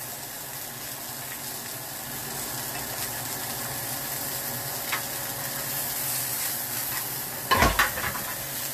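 Spice-crusted salmon fillets sizzling steadily in oil in a frying pan. Near the end, a few sharp clacks as metal tongs knock against the pan and fillets.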